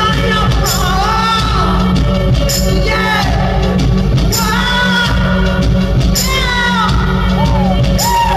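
Live electronic music: a man sings long wordless notes that glide up and down over a steady deep bass drone, with short hissy accents recurring every second or two.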